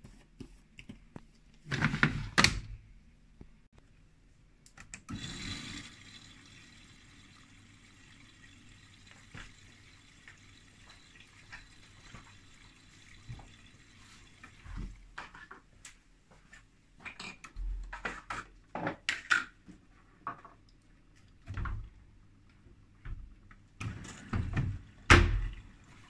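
Miele Softronic W3523 front-loading washing machine filling with water at the start of a wash. Loud knocks come about two seconds in and again near the end, with scattered clicks and clunks between.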